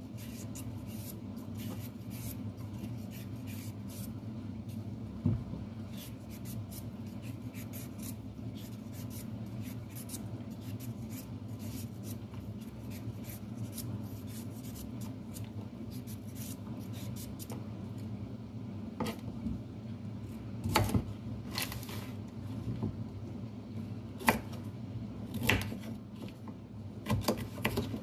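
Vegetable peeler scraping down carrots in many quick strokes over a steady low hum. In the last several seconds there are louder separate knocks as a knife cuts the carrots on a cutting board.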